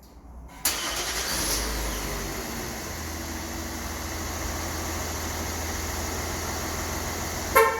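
Kia Mohave engine started remotely by an aftermarket remote-start alarm: it catches suddenly under a second in, runs up briefly, then settles into a steady idle. A short double beep sounds near the end.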